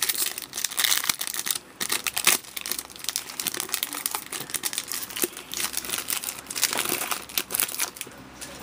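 A hockey card pack's foil wrapper crinkling and tearing as it is ripped open by hand, a dense run of crackles that stops near the end.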